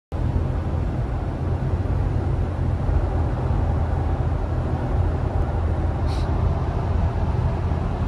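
Road and engine noise inside a car cabin at highway speed: a steady low rumble, with a brief faint hiss about six seconds in.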